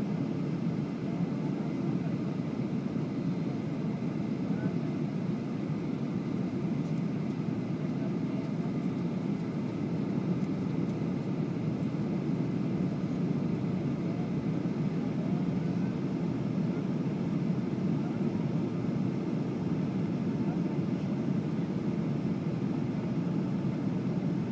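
Steady cabin noise inside a Boeing 737-900 on approach with flaps extended: the deep, even rumble of its CFM56-7B engines and the airflow, heard from a window seat over the wing.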